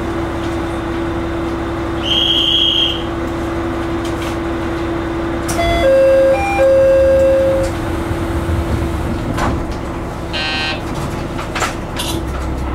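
KT-500 diesel railcar's engine idling at a station with a steady hum, while a short high buzzer sounds about two seconds in and a louder, lower steady tone, briefly broken, follows for about two seconds from about six seconds in. Near the end the engine's rumble rises as the car starts to pull away.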